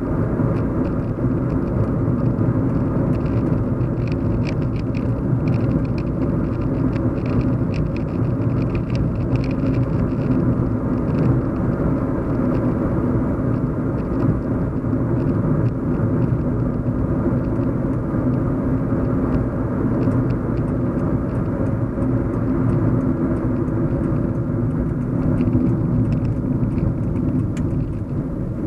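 Steady low rumbling hum of a car driving, heard from inside the cabin: road and engine noise with no change in speed. Faint light ticks come through now and then, mostly in the first half and again near the end.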